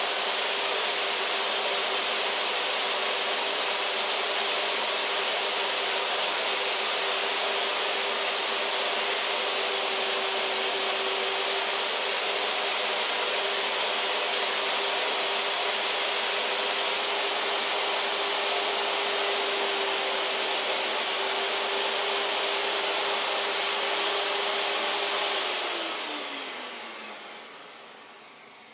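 Benchtop table saw's motor running steadily with a high whine, then switched off about 25 seconds in and winding down, its pitch falling as it spins to a stop.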